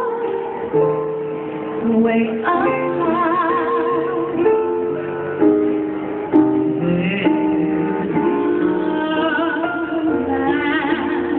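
A woman singing a slow song into a microphone with instrumental accompaniment, holding long notes with vibrato.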